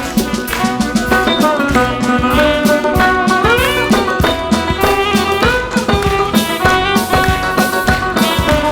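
Sarod with band accompaniment and drums playing a lively tune of the kind popular with Indian wedding bands, a fast melody with some sliding notes over a steady beat.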